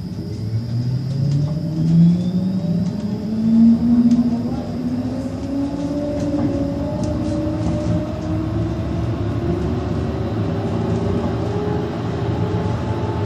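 A tram's traction motors whine, the pitch rising slowly and steadily as the tram accelerates, over a steady running rumble, heard from inside the passenger car.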